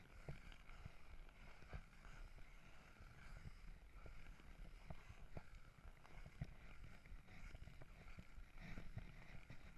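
Ice skate blades gliding and scraping over clear lake ice, faint, with a low rumble and scattered sharp clicks and ticks.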